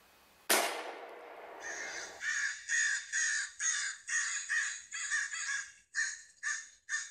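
A sharp bang about half a second in, its noise trailing off over more than a second, then crows cawing, a dozen or so harsh calls in quick succession.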